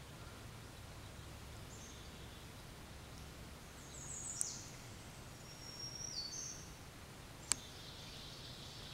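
Small woodland birds calling over a steady low outdoor rumble: two high, thin phrases of stepped notes, a little before the middle and again just after it. A single sharp click comes about three quarters of the way through.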